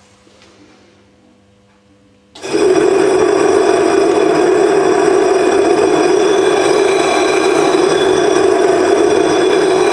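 Angle grinder switching on about two and a half seconds in and running steadily at a loud, even pitch, hollowing out a 16-inch glass telescope mirror blank.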